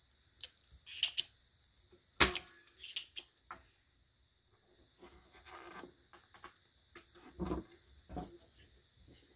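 Spring-loaded desoldering pump (solder sucker) on a circuit-board resistor pin: a few light clicks, then one sharp snap about two seconds in as the plunger fires and sucks the molten solder away. Later come smaller clicks and handling noise, and a duller knock as the pump is set down on the wooden table.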